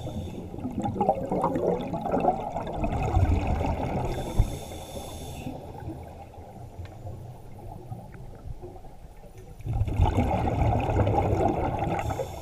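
Scuba diver's exhaled bubbles from a regulator, heard underwater through a GoPro housing: a gurgling, bubbling rumble for the first few seconds, quieter in the middle, and back again near the end. A single sharp tap about four seconds in.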